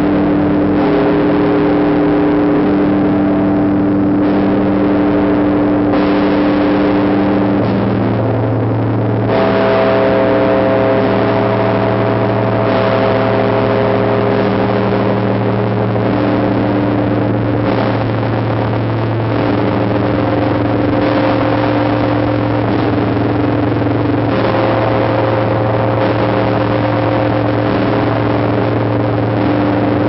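The Tsar Bell of the Trinity-Sergius Lavra bell tower ringing, struck every few seconds. Each stroke leaves a deep, sustained hum and several overlapping tones sounding on.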